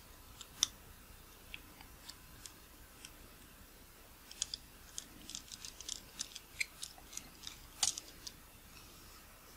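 Faint, scattered small clicks and ticks of a precision flat-blade screwdriver and small metal parts in the rear mount of a Nikkor 50mm f/1.4 AI-s lens, as the aperture-lever pivot is unscrewed. The clicks come thicker in the second half, with the sharpest one about eight seconds in.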